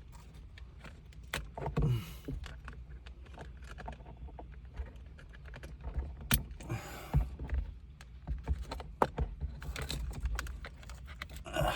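Scattered plastic clicks, taps and rustling as wiring harness connectors are plugged back in and the overhead console trim is handled.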